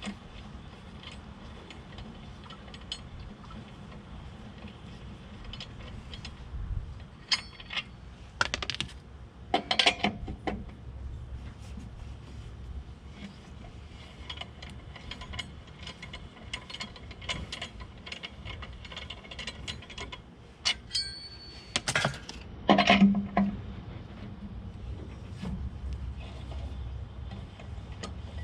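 Metal tools and parts being handled on a pickup's wheel and brake: scattered clicks and clinks over a low steady hum, with louder clattering about eight to ten seconds in and again around twenty-two seconds in.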